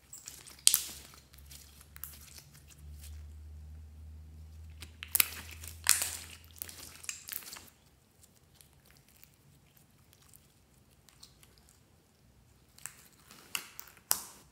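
Green glitter slime squeezed and stretched by hand: three bursts of sticky clicking and crackling, near the start, in the middle and near the end, with quieter stretches between.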